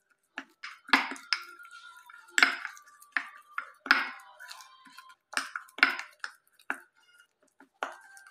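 Metal spoon stirring a thick face-mask paste in a cut-glass jar, knocking and scraping against the glass in irregular strokes about once or twice a second, the louder knocks ringing briefly.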